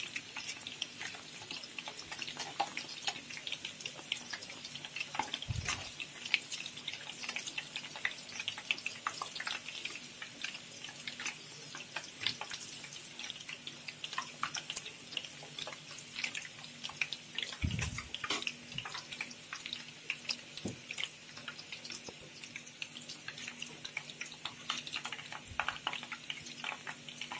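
Egg-and-milk-dipped bread slices shallow-frying in hot oil: a steady sizzle with dense crackling of the bubbling oil. Two low thumps come about six and eighteen seconds in.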